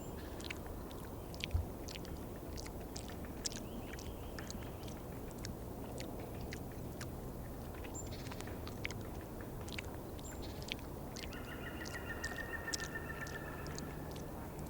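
Woodpecker pecking at food: irregular sharp taps scattered throughout, over a steady low rumble. A short bird trill comes in about eleven seconds in and lasts a couple of seconds.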